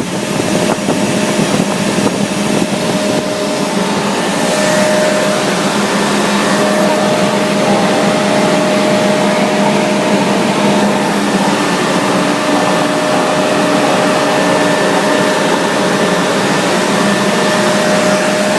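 Machinery running steadily: an even, loud noise with a few steady humming tones.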